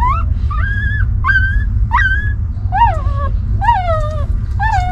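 Newborn puppies whimpering: a string of high, thin cries, about one every three-quarters of a second, each rising then falling in pitch, over a steady low rumble.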